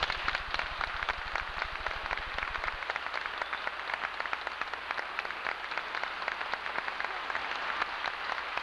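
Audience applauding: a dense, even clapping that breaks out just as the choir's singing ends and keeps a steady level.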